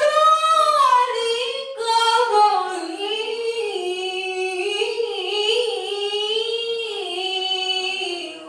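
A woman reciting the Qur'an in the melodic tilawah style, holding long ornamented phrases that waver up and down in pitch, with one short breath just under two seconds in.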